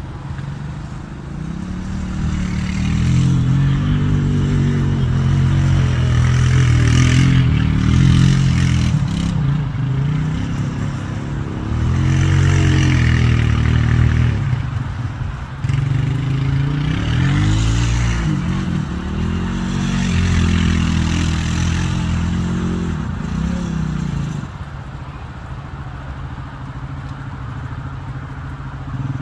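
A motor vehicle engine revving up and down in repeated swells, then dropping to a quieter, steadier run near the end.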